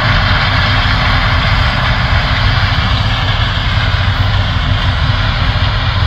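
John Deere S680 combine harvesting corn alongside a tractor and grain cart: a steady machinery drone with a strong low engine rumble.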